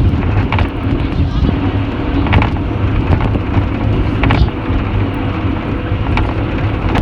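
A vehicle on the move: a loud, steady low rumble with a faint even hum, broken by a few short knocks and rattles.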